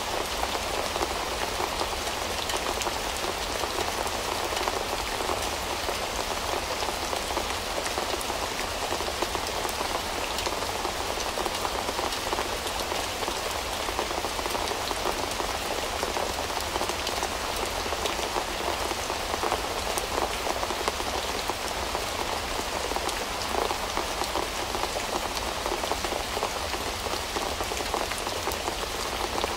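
Steady rain, its many single drops ticking on a hard surface, even and unbroken throughout.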